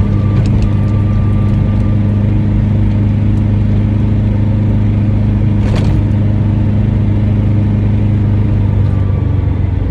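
Licence-free microcar running at a steady pace, its engine and drivetrain giving a loud, constant low drone heard from inside the cabin, with a faint higher whine and a single brief click about six seconds in.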